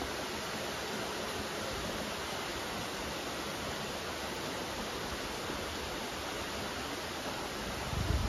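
Steady rain falling, a soft even patter of raindrops. A brief low rumble near the end.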